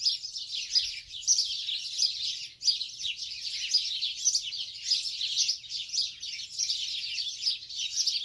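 A dense chorus of many small birds chirping and singing at once, with short calls overlapping steadily and a brief lull about two and a half seconds in.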